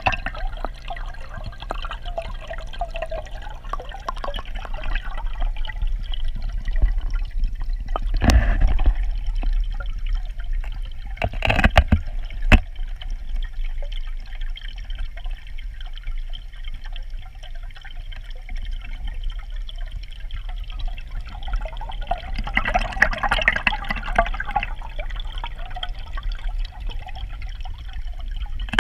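Water gurgling and trickling as heard by a camera submerged in its housing, over a steady low rumble. A few sharp knocks sound about a third of the way in.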